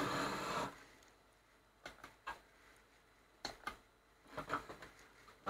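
Handling sounds while fitting parts of a monitor: a rubbing hiss that stops about a second in, then a few scattered small clicks and taps.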